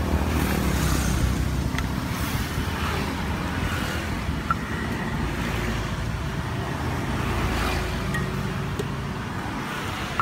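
Steady street traffic noise with a low rumble of passing vehicles, and a few sharp clicks about two seconds and four and a half seconds in.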